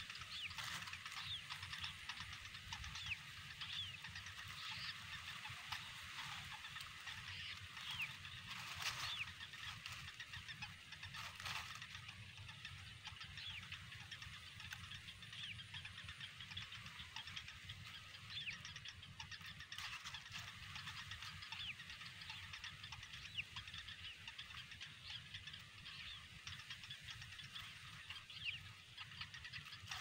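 Bittern chicks calling at the nest: many short, high begging calls repeated over a steady low rumble, with a couple of brief rustles around nine and eleven seconds in.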